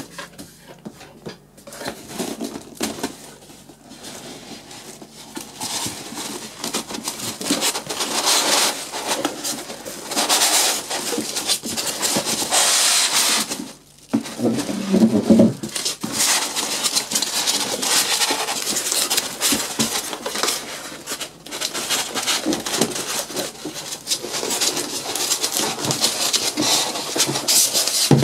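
Packaging and plastic parts of a desk fan being handled during unboxing: irregular rustling, clatter and small clicks, with a short lower-pitched rub or squeak about halfway through.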